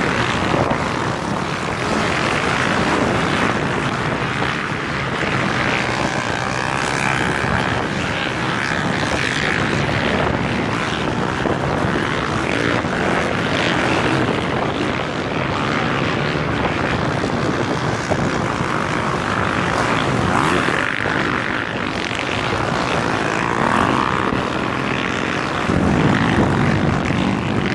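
Several enduro motorcycles running across sand dunes: an overlapping engine drone that keeps rising and falling in pitch as the bikes rev.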